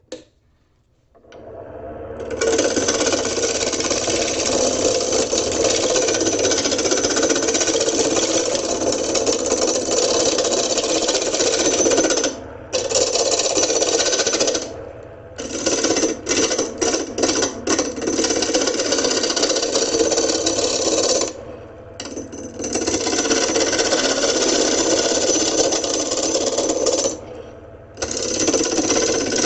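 Turning tool cutting the bark off a log spinning on a wood lathe: a loud, continuous cutting noise that starts a second or two in and breaks off briefly several times, with a quick run of short gaps in the middle, as the tool leaves and meets the wood again.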